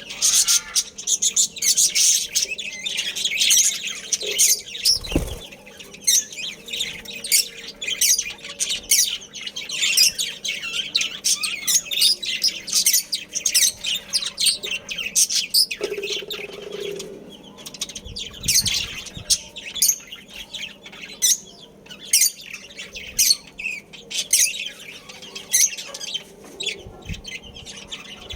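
Budgerigars chirping and chattering continuously, a rapid stream of high, overlapping chirps from several birds. A single dull thump about five seconds in.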